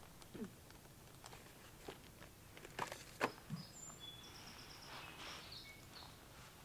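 Faint outdoor lake ambience with a few soft ticks in the first few seconds. Thin, high songbird chirps follow in the middle, including a short rapid trill of repeated notes.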